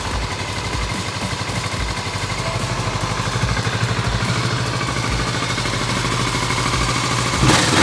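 Kawasaki Vulcan motorcycle engine running with a steady, even pulse, gradually getting a little louder, with a brief louder burst near the end.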